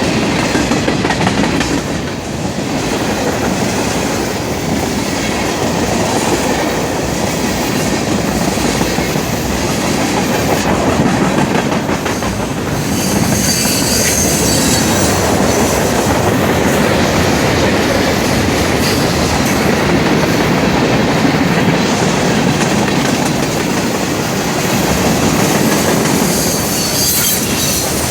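Freight cars of a long, fast Norfolk Southern manifest train rolling past: a steady rumble and clatter of steel wheels on rail, with brief high wheel squeals about halfway through and again near the end.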